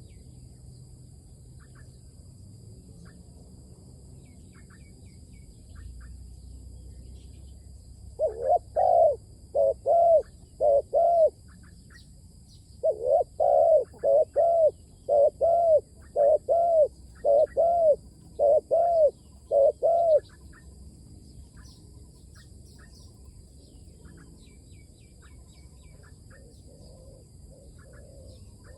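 Decoy spotted dove cooing in two runs of arched, low coos: about five notes, then after a short pause about a dozen more. Small birds chirp faintly throughout.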